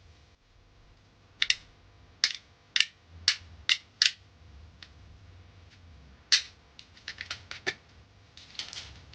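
A series of sharp, irregular clicks and knocks of hard plastic and metal parts being handled and tapped while working on a Mabe washing machine's door switch, some in quick pairs, over a faint low hum.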